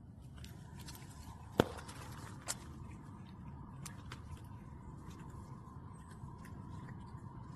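A cat chewing and tearing at grass blades: irregular crisp clicks and crunches, the sharpest snap about a second and a half in. A faint steady tone runs underneath.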